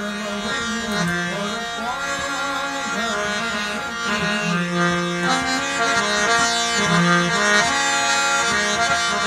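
Harmonium playing, with reedy held notes moving from one pitch to the next in a melody over sustained chords.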